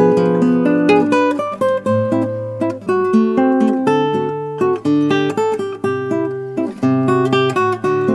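Background music: an acoustic guitar picking a quick run of notes and chords.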